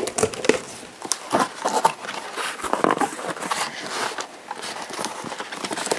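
Cardboard box and packing material being handled and opened: irregular rustling, scraping and crackling with many small clicks.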